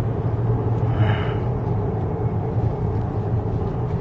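Steady low road and engine rumble inside a moving car's cabin at highway speed, with a brief higher sound about a second in.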